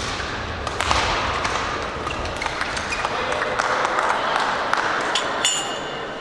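Badminton play in a large hall: sharp clicks of racket hits on the shuttlecock, with a brief squeak about five seconds in, over background voices.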